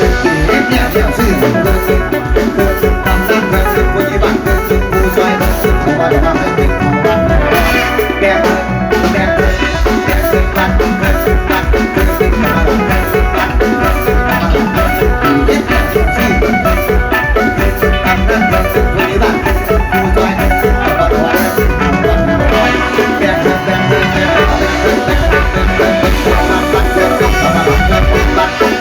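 Loud instrumental Isan mor lam music: a bright, quick plucked melody over a steady drum beat.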